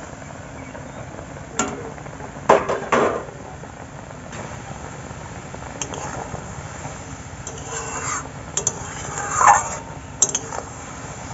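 Metal spatula clinking, knocking and scraping against a kadai as boiling hog plums are stirred, over a steady bubbling of the simmering liquid. A cluster of sharp metal clinks comes a couple of seconds in, with more scraping near the end.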